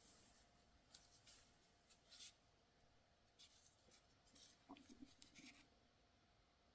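Near silence broken by faint scratchy rustling and a few light clicks, like small objects being handled, with a cluster of small knocks about five seconds in.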